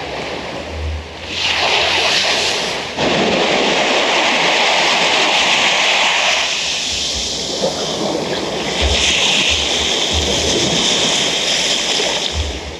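Ocean surf washing in, swelling about a second and a half in and again near nine seconds, with wind buffeting the microphone.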